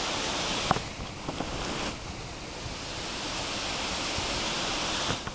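Water pouring over a concrete weir spillway into the pool below, a steady rushing hiss, with one short click under a second in.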